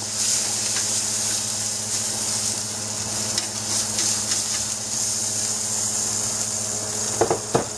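Fat sizzling in a hot cast-iron grill pan on an electric burner, a steady hiss, with the low steady hum of a kitchen fan underneath. Two short louder sounds near the end.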